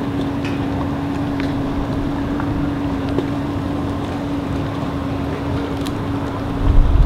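Boat engine idling with a steady low hum, over a haze of wind and water noise; near the end a gust of wind buffets the microphone.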